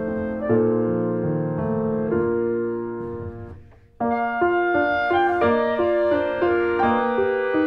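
Piano music playing chords. It fades away about three and a half seconds in, then starts again abruptly at full level a moment later.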